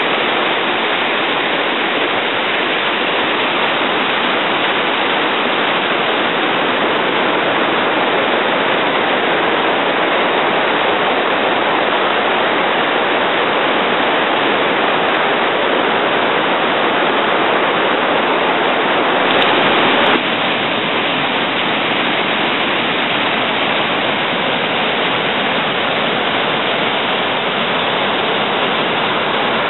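Steady rush of white water from the Little Firehole River cascading over rocks at Mystic Falls. It swells briefly about two-thirds of the way in.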